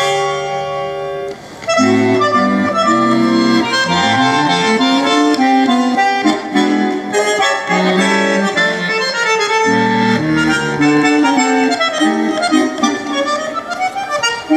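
Tango music led by a bandoneón playing the melody, with a short break in the phrase about a second and a half in.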